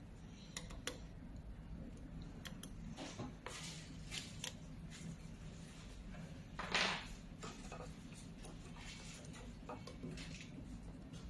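Scattered small metal clicks and scrapes as a hex key works the screws of a laser welding machine's xenon lamp housing and small parts are handled, over a steady low hum. One louder short rattle about seven seconds in.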